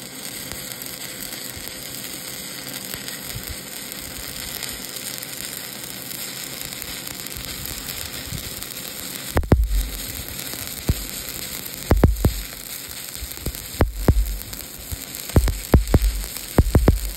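Stick-welding arc burning on a steel tube: a steady crackling sizzle from the electrode. About nine seconds in, loud sharp pops with low thumps start breaking in at irregular intervals.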